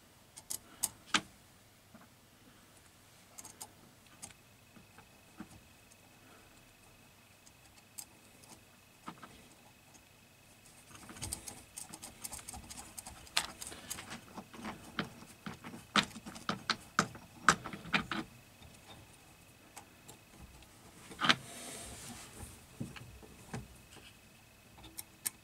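Small sharp clicks and light metallic clatter of fingers handling wires and small terminal fixings on a drum reversing switch, a few at first, then a busy spell of clicking and rustling through the middle and another short clatter near the end.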